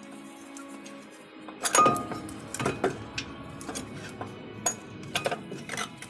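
Sharp metal clinks and knocks, about seven in all, as brake caliper parts and tools are handled. The loudest comes about two seconds in and rings briefly. Background music plays underneath.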